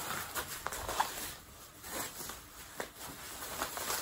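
Bubble wrap rustling and crinkling as a wrapped motorcycle exhaust silencer is handled, with a couple of light knocks.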